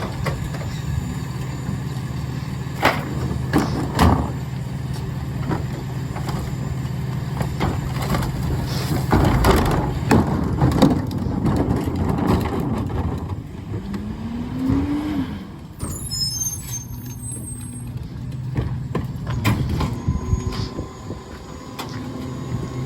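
Freightliner McNeilus rear-loader garbage truck running, with a steady engine hum and sharp clanks and knocks. About 14 seconds in there is a short rising whine, and a hiss of air follows about two seconds later.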